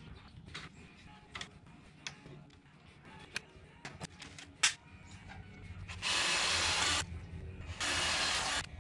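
Light clicks and rattles of a licence plate and its fasteners being handled, then a power driver running in two bursts, about a second and just under a second, each starting and stopping abruptly, as the plate fastenings are driven out.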